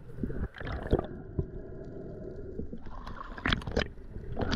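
Muffled underwater sound through a GoPro housing: a low, steady water rumble with scattered clicks and knocks, a few sharper knocks about three and a half seconds in and near the end.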